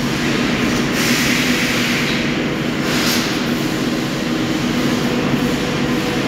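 Kirloskar engine lathe running, a steady mechanical hum with a gear whine. Two brief hissing surges come through, about a second and about three seconds in.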